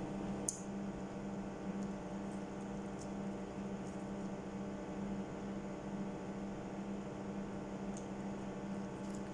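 Steady electrical hum, with a few faint, short clicks of mouth sounds from chewing food.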